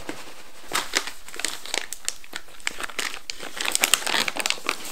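Clear plastic bag of pecan nuts crinkling as it is handled, a run of irregular crackles that gets busiest about four seconds in.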